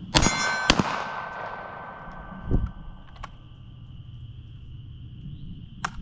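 Two pistol shots from a Sig Sauer P320, about half a second apart, each echoing and fading out with a ringing tone. A fainter sharp crack follows near the end.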